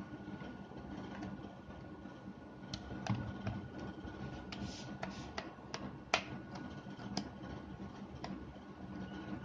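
Irregular clicks and light knocks of a Bosch power drill's plastic housing being handled and turned over on a wooden workbench, with a faint steady hum behind. The drill motor is not running.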